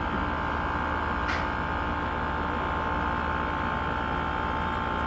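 Air-conditioning condensing unit running steadily, its compressor and condenser fan forced on by the contactor pressed in by hand during a pump-down, drawing the refrigerant out of the low side. A brief faint tick about a second in.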